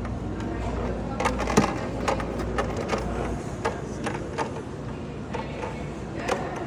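Scattered sharp clicks and knocks of a hard plastic popcorn bucket being handled, over a steady low hum.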